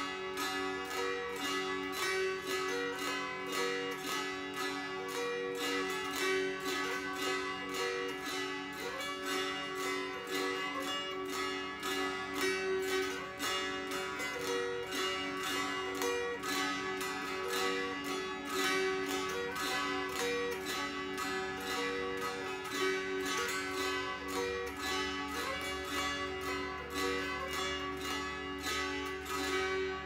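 Pennsylvania-Dutch scheitholt, a six-string fretted zither with a bloodwood body and curly maple top, tuned DGd DGd, strummed in a steady rhythm of about two to three strokes a second. A melody is fretted on the near strings while the other strings ring on as an unchanging drone.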